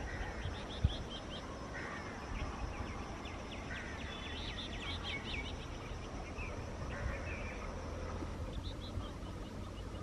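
Small birds chirping in quick runs of short, high calls over a low steady rumble, with a single sharp thump about a second in.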